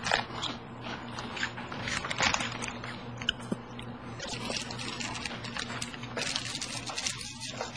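Crunchy snack chips being bitten and chewed, an irregular run of sharp crunches.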